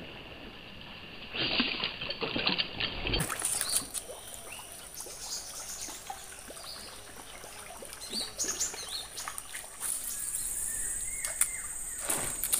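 Swamp-forest ambience: scattered bird chirps and calls over a low outdoor hush, with bursts of noise in the first few seconds and a steady high-pitched whine from about ten seconds in.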